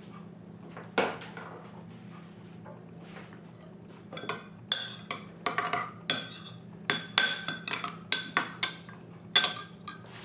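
Metal spoon clinking against a small glass bowl while stirring a dressing: one knock about a second in, then a quick run of about a dozen ringing clinks.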